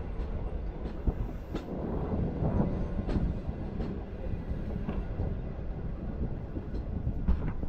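Green Line Express passenger train running along the track, heard from just outside the coach: a steady low rumble of the wheels on the rails, with sharp clicks and knocks at uneven intervals.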